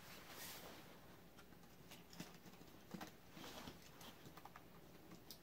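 Faint scattered clicks and rustling from hands rummaging among die-cast toy cars in a toy-car carrying case.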